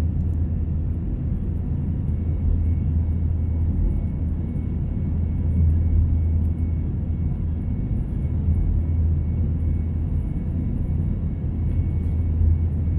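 Steady cabin noise inside an Airbus A321 airliner climbing shortly after takeoff: the drone of its jet engines and the rush of air, with a strong low hum.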